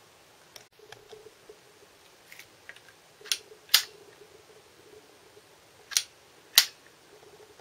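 Sharp mechanical snaps from a homemade wooden rifle-style slingshot being handled and worked. A few light clicks come first, then two pairs of loud snaps, each pair about half a second apart.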